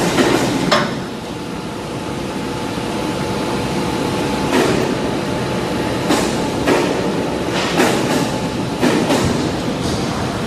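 Hydraulic car-tyre cutting machine running with a steady hum, with sharp metallic knocks at uneven intervals, about seven in the second half.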